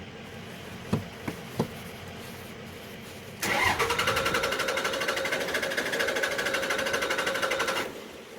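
A few short clicks, then the 5.9L Cummins common-rail diesel in a 2006 Dodge Ram 3500 cranks on the starter for about four and a half seconds with a fast, even pulsing and a steady whine, and does not fire before the cranking stops. It is a crank-no-start with no fuel pressure, which the mechanic traces to a failed fuel rail pressure sensor.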